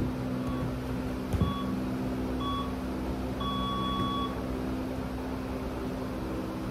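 Electronic timer beeping a countdown: three short beeps about a second apart, then one longer beep, over a steady low hum. A soccer ball knocks on the floor twice in the first second and a half.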